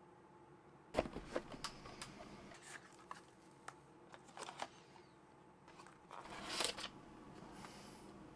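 Cardboard packaging of a mini PC being handled and opened: scattered taps, clicks and scrapes of the box lid and inserts starting about a second in, with a longer, louder sliding rustle of cardboard late on.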